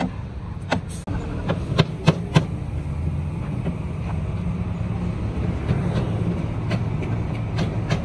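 Hammer knocking on timber formwork: a few sharp strikes close together about two seconds in, then lighter taps near the end, over a steady low rumble.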